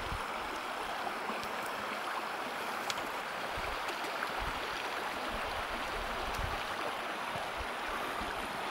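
Steady rushing of a flowing stream, with a few faint clicks.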